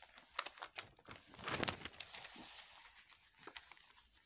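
A paper exam page being turned by hand: a rustle with small crackles, loudest about a second and a half in.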